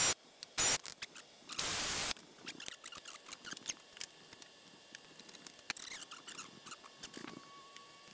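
A 24-volt brushless cordless drill drilling through aluminium sheet in two short bursts, each with a high motor whine: a brief one under a second in and a longer one of about half a second around two seconds in. After that, light clicks and clatter of small parts and tools being handled on a workbench.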